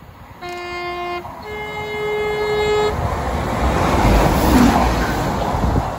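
Transport for Wales Class 197 diesel multiple unit sounding its two-tone horn, a lower note then a higher one, then coming past the platform with a rumble that builds to a peak and eases off.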